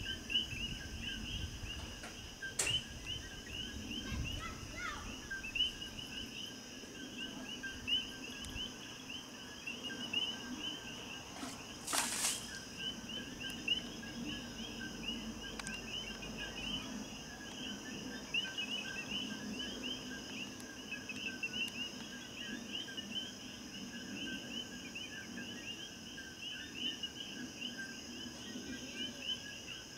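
Night insect chorus of crickets and other insects, trilling and pulsing steadily at several pitches over a faint low rumble. A sharp click comes about twelve seconds in.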